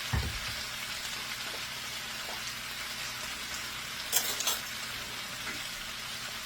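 Chicken chunks with onion, bell pepper and pineapple sizzling steadily in a frying pan, with a dull knock at the start and two sharp clinks about four seconds in, typical of a spatula against the pan.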